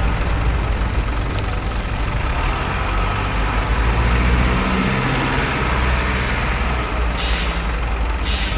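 Engine sound of a radio-controlled model dump truck, a steady low diesel-truck running note, with two short hisses near the end.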